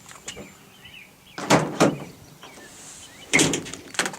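Heavy metal clunks from a Ford F-150 pickup's tailgate and its freshly locked stainless-steel tailgate lock. They come in two pairs: two close together about a second and a half in, and two more near the end.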